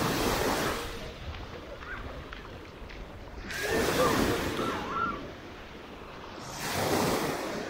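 Small sea waves breaking and washing up the sand at the water's edge, three times, each wash swelling and fading over a second or two. Faint voices of beachgoers in between.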